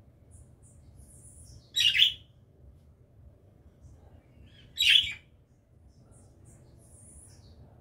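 Small pet birds chirping: two loud calls about three seconds apart, with soft, high-pitched chirps between them.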